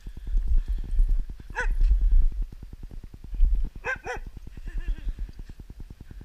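A dog giving short, high-pitched play barks: one about a second and a half in and two quick ones around four seconds in, over a steady low rumble on the microphone.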